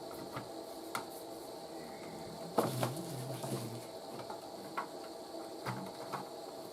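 Scattered light clicks and knocks of small objects being handled on a workbench, with a short cluster of knocks about two and a half seconds in.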